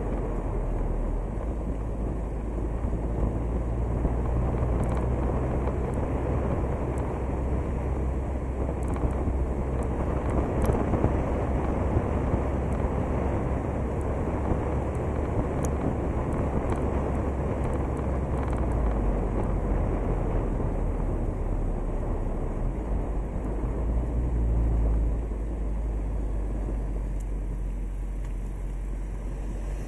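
A moving car's road noise picked up by a camera mounted on the outside of the car: a steady low rumble of tyres and wind over the microphone, which eases a little near the end.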